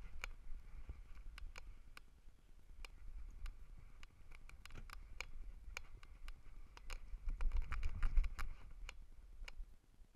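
Irregular light clicks and knocks over a low rumble: handling noise from a GoPro in its housing strapped to a small dog's harness as the dog walks. The rumble swells about seven seconds in, then dies away near the end.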